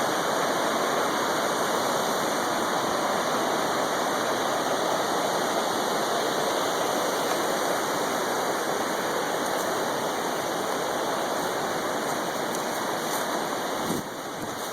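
A small waterfall on a rocky creek, water rushing steadily. The level drops a little about a second before the end.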